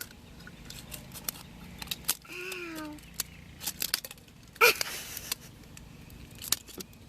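Plastic slime container being handled and pried at: scattered small clicks and taps, with one loud sharp snap a little past halfway. A short strained vocal sound, like a grunt of effort, comes about two and a half seconds in.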